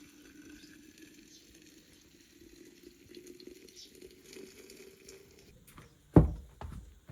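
Water running into a container, its tone slowly rising as it fills, stopping about five and a half seconds in. Then a loud knock and a couple of lighter knocks near the end.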